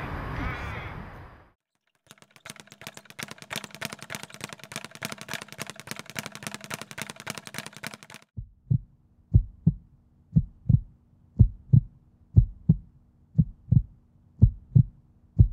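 Heartbeat sound: pairs of low thumps, lub-dub, about once a second, starting about eight seconds in. Before it comes a fast, even ticking with a faint steady hum.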